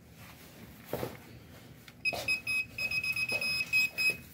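Non-contact voltage tester pen beeping: a high-pitched tone pulsing rapidly and unevenly, starting about two seconds in and stopping just before the end, the signal that it senses a live wire. A few soft knocks of handling come before and during the beeping.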